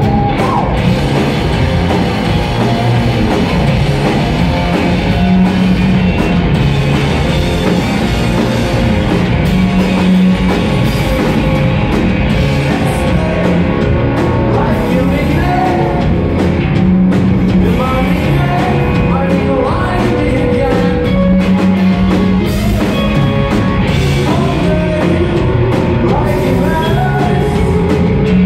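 Rock band playing live and loud on electric guitars, bass guitar and drum kit, heard from the audience in a concert hall.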